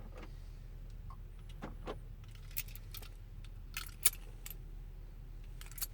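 Keys jingling and clicking lightly on a key ring, in scattered short clicks that come more often in the second half, the sharpest about four seconds in, over a steady low hum.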